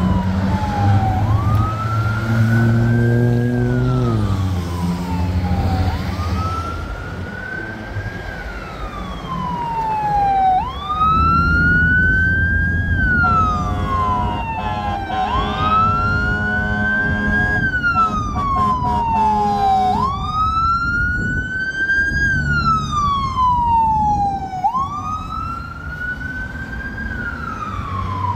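Fire apparatus siren in a slow wail, sweeping up quickly and falling slowly about every five seconds, over the low rumble of the truck's engine. A deep horn sounds briefly about three seconds in.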